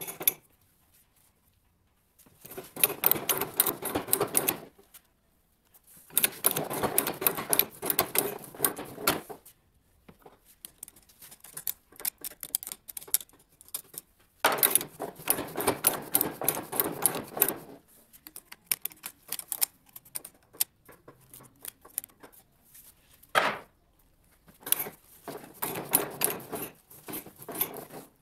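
Hand ratchet pipe threader being worked on a steel pipe held in a pipe vise: four runs of rapid metallic clicking, each two to three seconds long, with pauses between.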